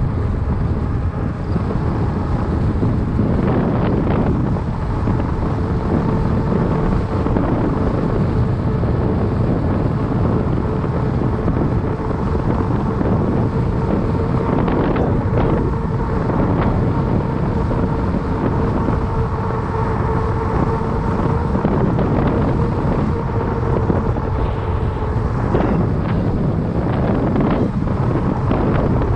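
Wind rumbling on the microphone of a fat bike riding along an asphalt path, with a steady hum that stops a few seconds before the end and a few light ticks from bumps.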